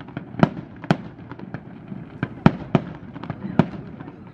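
Aerial fireworks bursting: an irregular run of sharp bangs and pops, about a dozen in four seconds, some louder than others.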